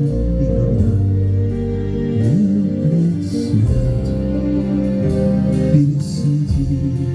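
Band music without vocals: guitar over a sustained bass line with sliding low notes.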